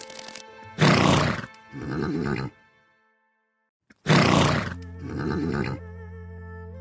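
A horse whinnying twice, the same call repeated about three seconds apart, each a loud rough burst trailing into a shorter pitched part. Background music with steady tones plays under it and cuts out to silence for about a second between the two calls.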